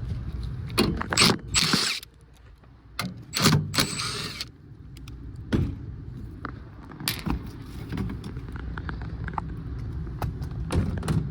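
Clatter and knocks of hands and tools working at a rooftop HVAC package unit while checking the fan belt, loudest in two clusters in the first few seconds, with a few lighter clicks later, over a steady low rumble.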